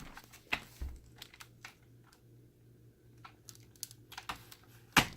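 Scattered plastic clicks and small knocks from handling a cordless stick vacuum while working its release to pull out the handheld unit, with one louder knock near the end.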